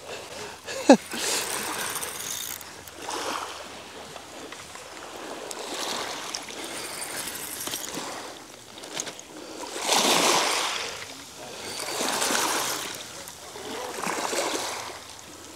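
Small waves washing onto a shingle beach: a soft hiss that rises and falls every couple of seconds, the strongest swell about ten seconds in.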